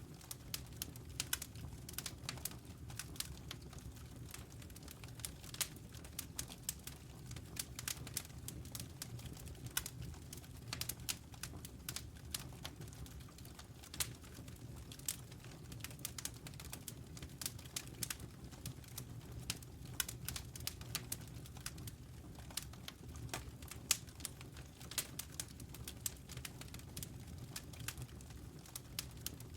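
Wood fire crackling: frequent irregular sharp pops and snaps of burning wood over a steady low rumble.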